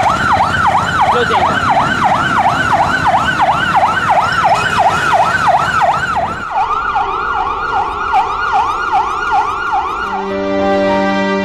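Ambulance siren in fast yelp mode, a rising-and-falling wail repeating about three times a second. About ten seconds in it fades out under soft, sad piano music.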